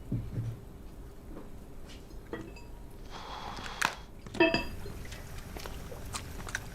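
Light clinks and knocks of dishes and utensils being handled, with a short hiss just past the middle and one ringing clink a little after four seconds in, the loudest sound here.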